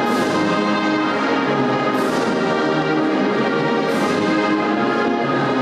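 Choir singing the university alma mater in slow, held chords, the sound swelling about every two seconds.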